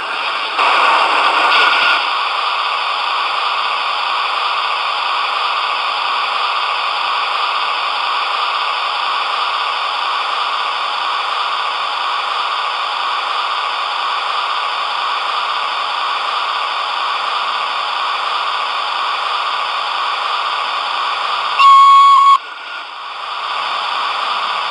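A model locomotive's sound decoder playing a steady hissing running sound through its small speaker, with one short, loud horn blast near the end.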